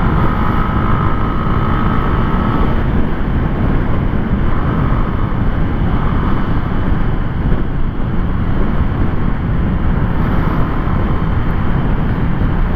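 Honda CB Twister 250's single-cylinder engine running steadily at highway cruising speed, about 85–95 km/h, under heavy wind noise on the microphone.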